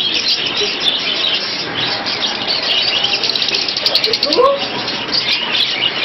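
A crowd of caged budgerigars chattering, a dense, unbroken twittering of many short chirps, with a few louder gliding squawks about four seconds in.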